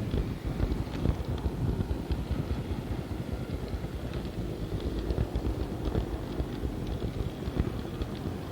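Model tram running along a diorama track: a steady low rumble of motor and wheels on the rails, with light scattered clicks.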